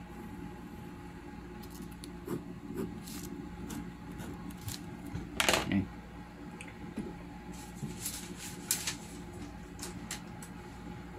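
Pen drawing quick strokes on paper: a scattering of short scratches, the loudest about five and a half seconds in, over a faint steady hum.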